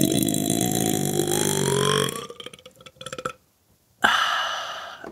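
A person's long, loud burp, its pitch sliding down and back up, ending about two seconds in. A second, shorter burp follows about four seconds in.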